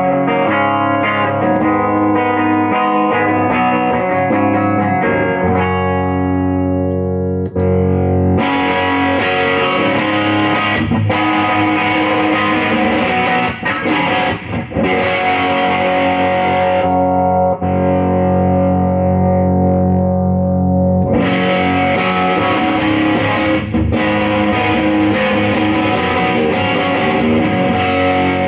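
Electric guitar, a 50s-style Les Paul into a Fender Deluxe amp, playing ringing chords, starting on a clean tone. About eight seconds in the tone turns much brighter and grittier, eases back for a few seconds past the middle, then turns bright and gritty again.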